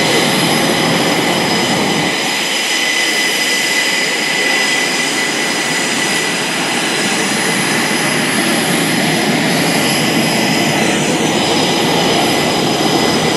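F/A-18E/F Super Hornets' twin General Electric F414 turbofan engines at taxi power: a loud, steady jet whine with several high held tones over a broad rushing noise.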